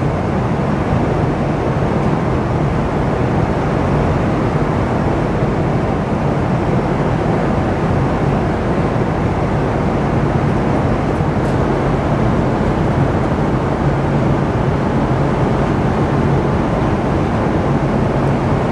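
Steady drone of a jet airliner in flight heard from inside the cabin: engine and airflow noise, a low even rush with a faint hum underneath, unchanging throughout.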